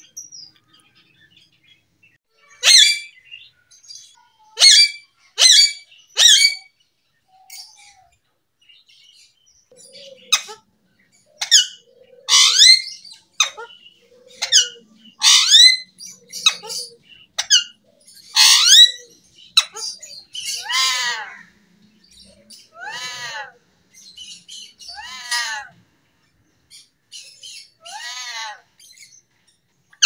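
Alexandrine parakeet calling: a run of loud, shrill, short squawks, then, past the middle, a few longer calls that slide down in pitch.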